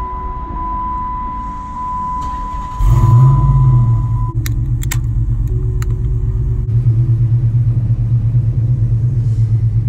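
Dodge Challenger engine starting about three seconds in, flaring up briefly and then settling into a steady idle, heard from inside the cabin. Before the start a steady dashboard warning tone sounds with the ignition on, stopping soon after the engine catches; a few sharp clicks follow.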